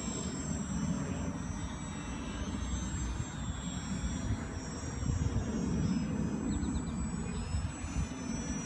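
Motors of several radio-controlled combat model planes whining overhead, a few high, thin tones that drift slightly in pitch as the planes turn, over a low steady rumble.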